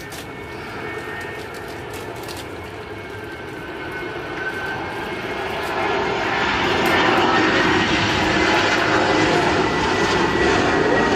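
Airbus A320-216's twin CFM56 turbofan engines on landing approach: a rushing jet noise with a thin whine that grows steadily louder until about six or seven seconds in, then holds loud as the airliner comes close.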